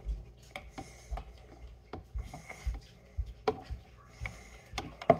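A utensil knocking and scraping against the inside of a clear blender cup full of drink: a scatter of light, irregular clicks and taps, with a sharper knock near the end.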